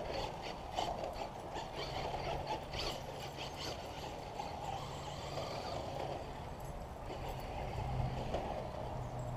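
Traxxas electric RC car driving across a grass lawn, its motor and drivetrain whining and rattling, with scattered clicks in the first few seconds and a low hum that comes and goes.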